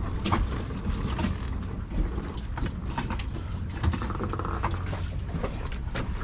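Scattered clicks and knocks of boat hardware being moved and handled, likely the steering column and engine-compartment access, over a steady low hum.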